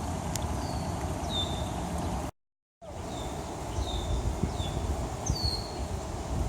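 Small birds calling: short high chirps that slide down in pitch, a few times a second at most, over a steady outdoor hiss and low rumble. The sound cuts out completely for about half a second about two seconds in.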